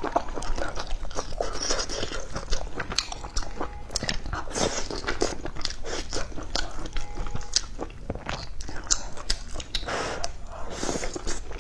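Close-miked eating of crispy fried chicken: crunchy bites and chewing, with a dense run of irregular crackles from the breading.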